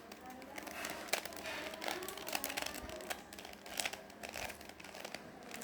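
Rubik's cube layers being turned by hand: quick, irregular plastic clicks and rattles.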